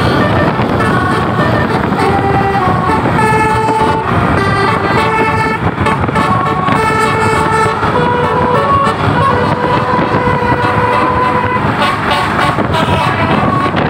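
Basuri horn, a multi-tone musical air horn, playing a tune in quick stepped notes with a few longer held notes past the middle, over the rumble of the vehicle's engine.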